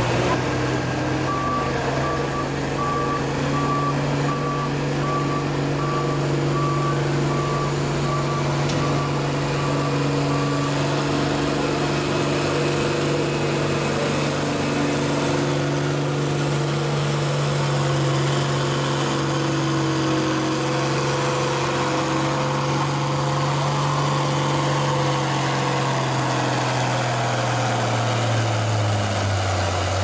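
Farm tractor engine working hard at a steady pace while pulling a weight sled, with a pitch that drops over the last couple of seconds as the pull ends. A backup beeper sounds at about one beep a second for the first ten seconds.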